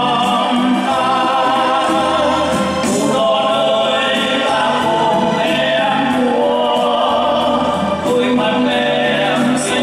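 Male solo voice singing into a microphone over amplified backing music.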